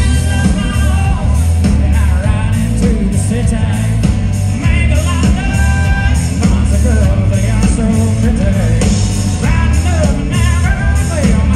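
Live band playing a song: drums, bass and electric guitars with a strumming acoustic guitar and a man singing lead.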